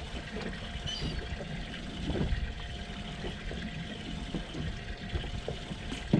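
Water lapping and trickling against a boat's hull, with scattered small knocks.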